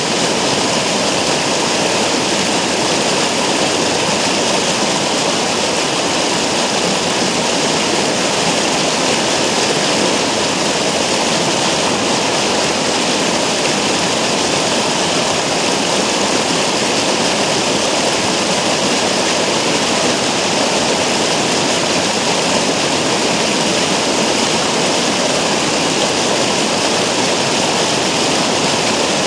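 Stream water rushing and splashing over and around a rock, steady and loud.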